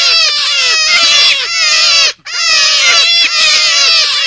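Forest rabbit calls played as a hunting lure: rapid, repeated high squeals, each gliding down in pitch, overlapping in a continuous stream, with a brief break about two seconds in.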